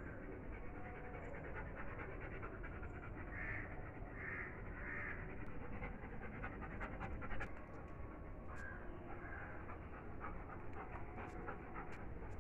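German shepherd dog panting steadily, with a few light clicks in the second half and a brief louder bump about seven seconds in.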